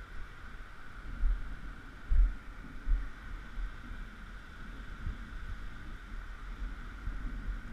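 Wind buffeting the microphone in uneven low rumbling gusts, strongest about one to three seconds in, over a steady background hiss.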